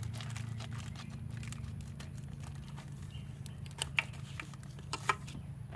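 Hands working on a Jeep XJ throttle body to take its sensors off: scattered sharp plastic clicks and light rustling, over a steady low hum.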